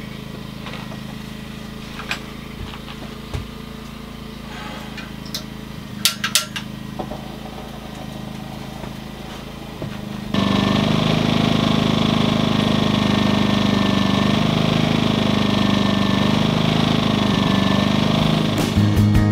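Small portable generator engine running steadily, fainter and muffled at first with a few light clicks and knocks, then suddenly loud and close about ten seconds in.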